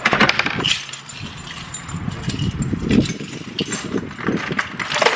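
Keys jangling amid a run of sharp clicks and rattles.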